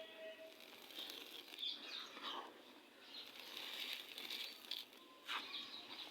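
Gritty red sand crumbling and crunching in irregular crackles, with a sharper crack about five seconds in.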